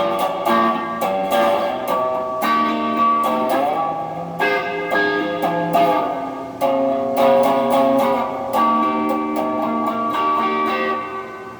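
Electric guitar played through an amplifier: blues licks of picked single notes and double-stops with several string bends, the phrases ringing out and dying away near the end.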